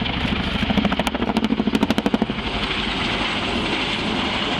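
Boeing CH-47 Chinook tandem-rotor helicopter banking overhead. Its rotor blades beat in a rapid, rhythmic chop that swells for about two seconds, then settles into the steady rush of its engines and rotors.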